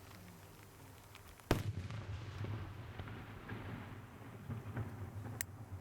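A fireworks shell bursting with one sharp, loud bang about a second and a half in, followed by a low rolling rumble that lasts several seconds. A few faint crackles and a sharp pop come near the end.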